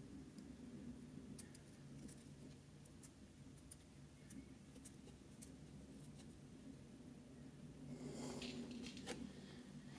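Faint small ticks and clicks of a miniature corkscrew being turned into a tiny cork and drawn out of a miniature bottle. Near the end there is a short louder scrape, then a sharp click.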